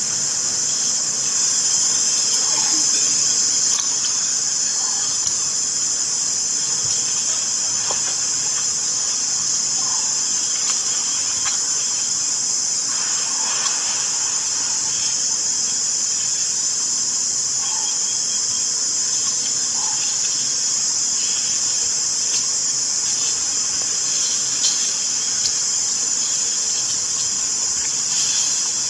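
Steady high-pitched hiss, with a few faint short chirps now and then.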